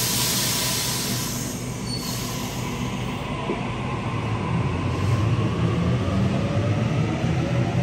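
Double-deck electric passenger train pulling away from the platform, with a loud hiss of air in the first second or two. After that comes a low rumble and a faint rising whine from the traction motors as the train gathers speed.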